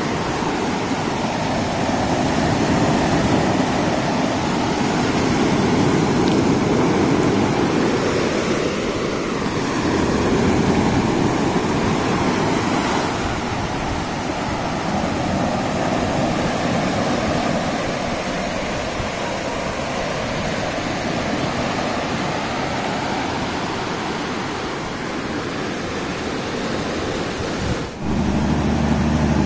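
Surf breaking on a sandy beach: a steady wash of waves that swells and eases. Near the end it cuts off suddenly and a steady low hum takes over.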